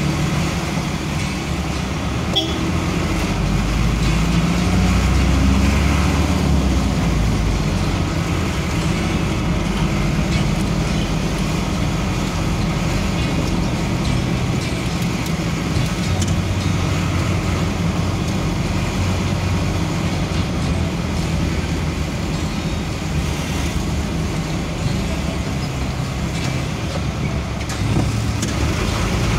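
Engine and road noise from a vehicle driving slowly through a busy street, with motorcycles and other traffic around it. The low engine hum swells louder for a few seconds about four seconds in.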